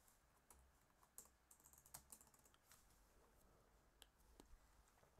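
Near silence broken by a few faint, scattered computer keyboard keystrokes.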